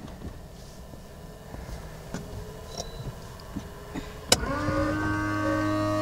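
Small ticks and rustles, then a sharp click about four seconds in, followed at once by an electric motor on the Piper Aztec spinning up into a steady whine and hum with several held tones.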